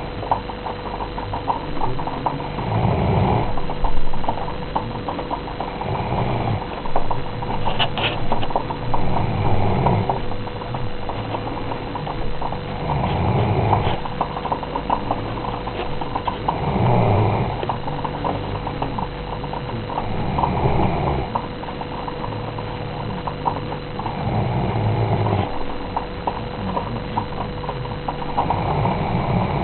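Doberman snoring in its sleep, one drawn-out snore about every three to four seconds, over a steady faint hum.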